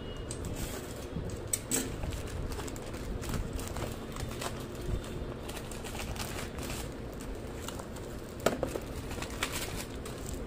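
Plastic courier mailer bag crinkling and rustling as it is handled and turned over, with scattered sharper crackles, the loudest about eight and a half seconds in.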